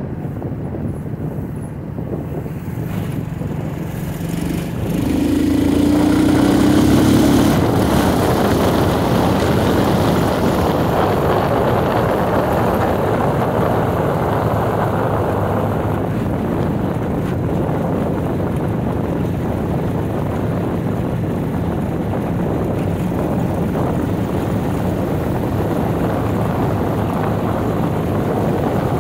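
A road vehicle under way: steady engine and road noise. It grows louder about five seconds in, with a brief hum for a couple of seconds.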